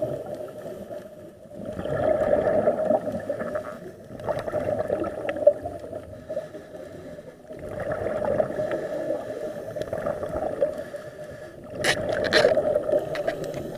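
Scuba diver's regulator breathing underwater: gurgling rushes of exhaled bubbles that swell and fade every three to four seconds, with a sharper crackle of bubbles near the end.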